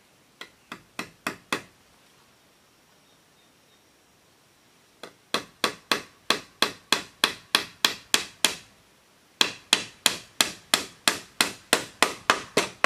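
Hammer striking bamboo roof strips, driving nails into a split-bamboo edge batten on a bamboo roof. There is a short run of five blows, then two long runs of steady blows at about three a second. The first blows grow louder one after another.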